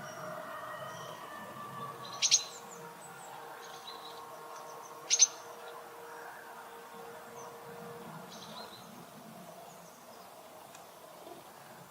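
Small wild birds chirping: two sharp double chirps, about two and five seconds in, stand out over fainter scattered chirps and a soft background of outdoor noise.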